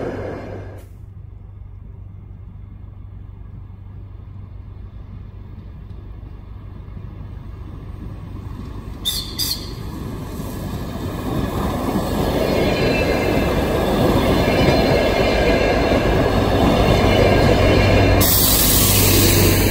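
DR1Am diesel multiple unit approaching and passing: the engine and wheels on the rails grow steadily louder, with two short sharp sounds about halfway and a rising hiss of wheel noise as the cars go by near the end.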